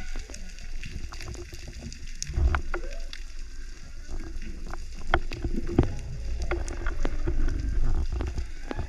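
Underwater sound picked up through a camera's waterproof housing while swimming along a reef: a low rumble of water moving over the housing, swelling about two and a half seconds in and again in the second half, with sharp clicks and pops scattered throughout.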